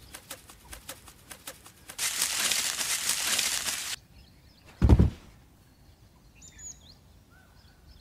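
Cartoon sound effects of a parrot flying and crashing. Rapid wing-flap ticks come first, then about two seconds of rustling noise as it crashes into a bush, then a single heavy thump about five seconds in.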